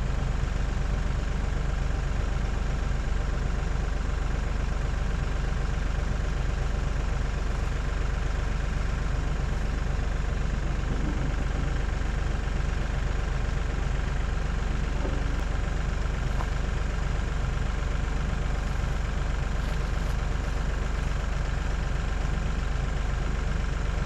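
Tractor engine idling steadily at constant speed.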